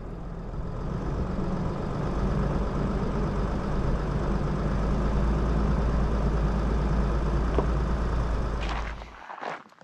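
Vehicle engine idling with a steady low rumble, then shut off abruptly about nine seconds in.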